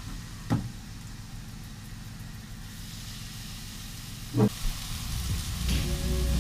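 Breaded pollock fillets sizzling in hot oil in a frying pan, the sizzle getting louder in the second half, with two sharp knocks about half a second and four and a half seconds in as the pan is handled. Background music comes in near the end.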